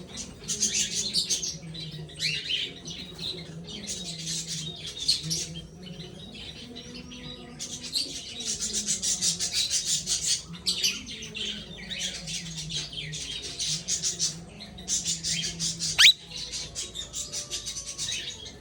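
Young plum-headed parakeet chattering in bouts of rapid, high chirps, with one loud, sharp call about sixteen seconds in.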